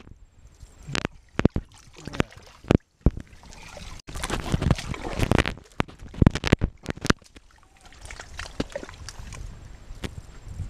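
Wet mud and shallow water squelching and sloshing as hands dig into a mud crab burrow and the man moves through mangrove mud, with many sharp clicks and knocks. A denser spell of sloshing comes between about four and seven seconds in.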